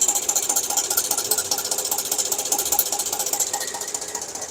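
Hyundai Equus engine running with a fast, even ticking clatter, which the mechanic takes for a stretched timing chain.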